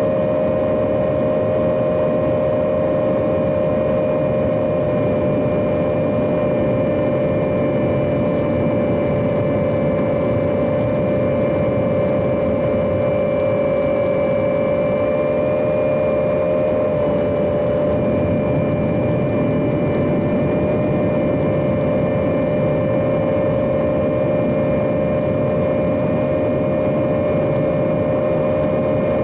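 A 75 mm Mobula 7 micro FPV whoop drone in steady flight: its small brushless motors and ducted propellers make a continuous high whine, with the pitch drifting slightly as the throttle changes, over a steady rushing hiss.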